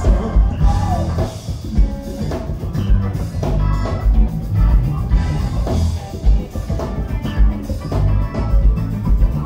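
Live funk band playing: electric bass, drum kit, guitar and keyboard, with a strong pulsing bass line and regular drum hits.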